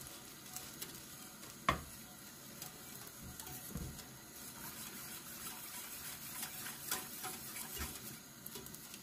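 Faint stirring of rice grains in a pot with a wooden spoon as the pilaf rice starts to toast in oil, with one sharp knock about two seconds in.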